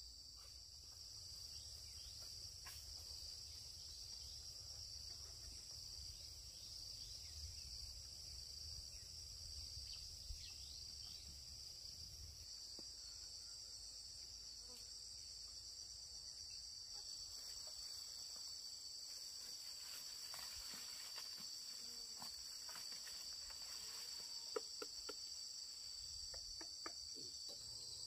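Insect chorus: a steady, unbroken high-pitched trill that holds at an even level, with a few faint clicks in the second half.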